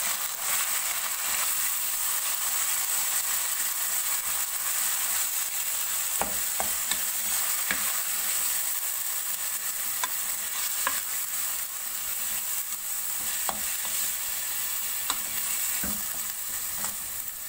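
Minced meat (keema) frying over a high flame in oil with fried onions and ginger-garlic paste, sizzling steadily while it is stirred. Short clicks of the spoon against the pan come now and then.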